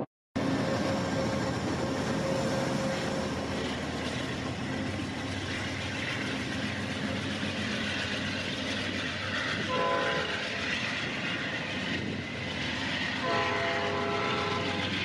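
Amtrak Genesis diesel locomotive pulling a passenger train out of the station, its engine running under load with dark exhaust, and its multi-note horn sounding twice: a short blast about ten seconds in and a longer one near the end.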